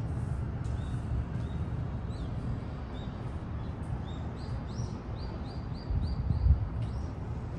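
Small birds chirping: short rising chirps, with a quick run of several about five seconds in, over a steady low background rumble. A brief low bump about six and a half seconds in.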